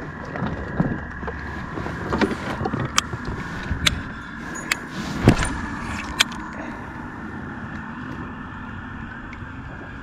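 Sharp clicks and a few dull knocks of fishing tackle handled on a plastic kayak while a baitcasting rod is cast and reeled, over a steady hiss. The clicks stop about six seconds in.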